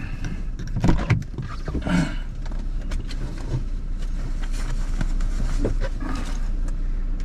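Steady low rumble of a car being driven, heard from inside the cabin, with two short louder sounds about one and two seconds in.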